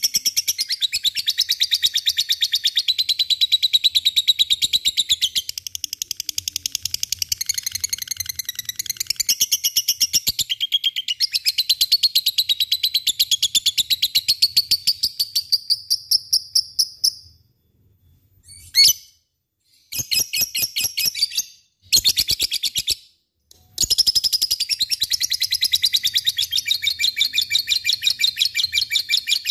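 Lovebird's 'ngekek': a long, high-pitched, very fast chattering trill that runs unbroken for about seventeen seconds, breaks into three short bursts with pauses, then resumes as a long continuous trill.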